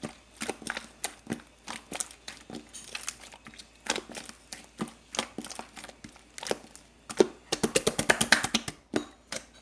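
Sharp, crisp clicks and crackles, close up, one or two a second, breaking into a fast run of crackling about seven and a half seconds in.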